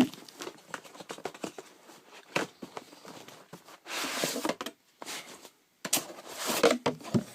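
Packaging being handled: scattered clicks and knocks, with two longer rustling stretches about four and six seconds in, as items are taken out of a box.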